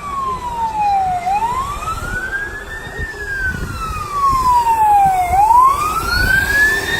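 Emergency vehicle siren on a wail cycle, its pitch falling slowly and then sweeping back up, about four seconds per cycle. It gets louder in the second half as the vehicle approaches, over low traffic rumble.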